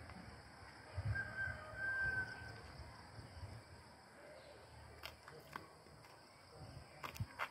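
Outdoor ambience: low wind rumble on the microphone, and a bird calling once, a held high call about a second in. A few sharp clicks come near the end.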